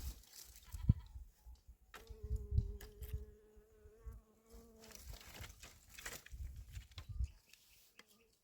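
A goat bleating: one long, steady call from about two seconds in to about five seconds in, over a low rumble.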